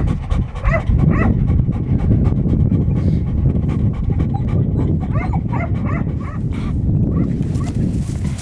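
English setters whining and yipping in excitement while held on the lead, eager to be released, with several short high whines in two clusters over a steady low rumble.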